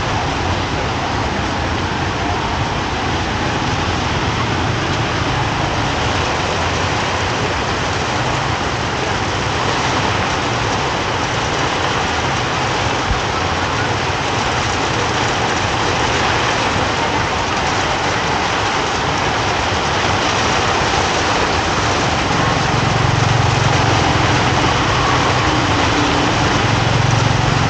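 Steady hiss of rain and street traffic, with a motor engine humming louder from about 22 seconds in.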